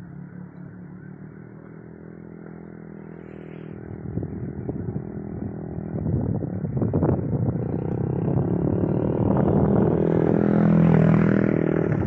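A vehicle engine running steadily, growing louder over several seconds as it draws closer and loudest near the end, with a few short knocks along the way.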